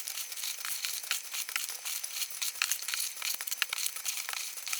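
Hands rummaging through loose starch packing peanuts in a cardboard box: a dense, continuous crackling rustle.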